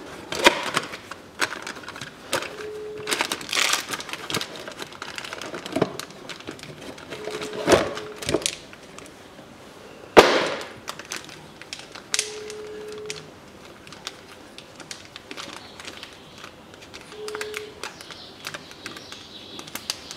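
Handling noise as a new set of spark plug leads is unpacked from its box: crackling packaging and the leads and their boots clicking and knocking together. The loudest is a single sharp knock about ten seconds in.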